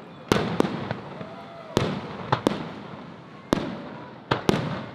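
Aerial fireworks shells bursting: about eight sharp bangs at irregular intervals, some in quick pairs, each followed by a rumbling echo that fades away.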